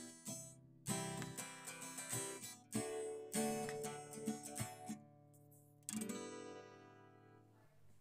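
Acoustic guitar playing a slow tune of strummed chords, the last one, about six seconds in, left to ring and fade out.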